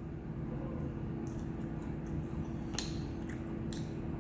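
Close-up eating sounds: a few short, crisp clicks and mouth smacks, the sharpest a little before the three-second mark, over a steady low hum.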